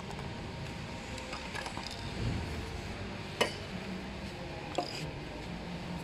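Handling noise from an electric scooter being turned over and worked on: a sharp knock about three and a half seconds in and a smaller click just before five seconds.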